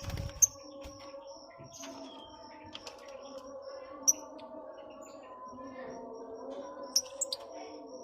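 Lovebirds chirping in a colony aviary: short high chirps, a few sharp loud ones scattered through, over a steady low hum.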